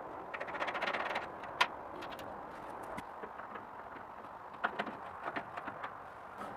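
Small steel sprockets of a home-made rotisserie drive meshing as they are turned by hand. For about the first second their teeth give a rapid run of clicks, followed by one sharp click. Later there are a few sharp metal clicks and knocks as a small pin is fitted into a hole in the steel wall.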